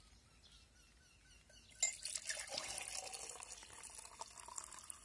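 Warm water pouring from a plastic bottle into a glass jar to dissolve humate fertilizer powder. It starts with a click about two seconds in and then runs as a steady hiss.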